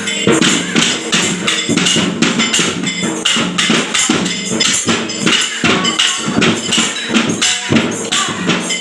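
Music with a steady, quick percussive beat of repeated sharp strikes over pitched tones.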